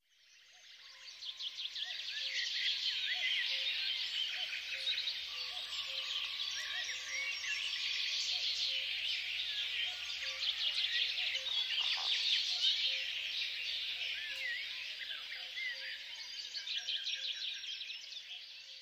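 A dense chorus of many small birds chirping, fading in over the first couple of seconds and fading out near the end.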